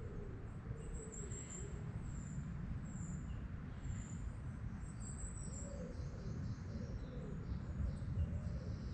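Woodland birds singing and calling, with short high chirps repeating throughout over a low, steady background rumble.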